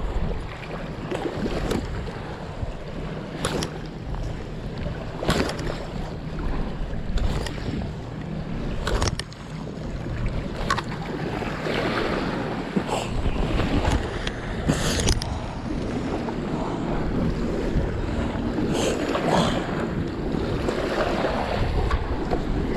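Wind buffeting the microphone over small waves washing against a rocky shore, with scattered short clicks and knocks throughout.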